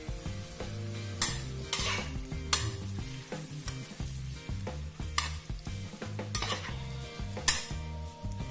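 Steel spatula stirring and tossing bean sprouts in a coated wok over a hot flame, the food sizzling as it fries, with several sharp scrapes of the spatula against the pan, the loudest near the end.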